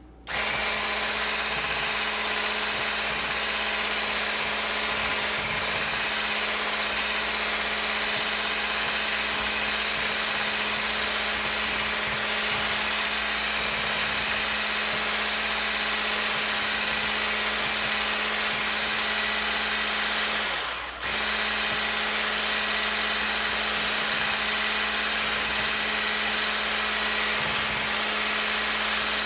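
Handheld electric coil whisk running at a steady pitch in a steel bowl of oil and water, whipping a homemade lotion mixture so that it emulsifies and thickens. The motor starts right away and cuts out for a moment about 21 seconds in before running on.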